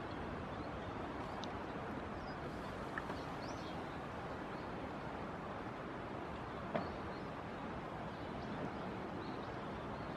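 Steady rush of shallow flowing stream water, with one sharp click about seven seconds in and a few faint, high chirps.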